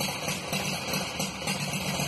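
Hand-built Isard 688 V-twin engine with hand-cast crankcases, running steadily at idle on a bench stand.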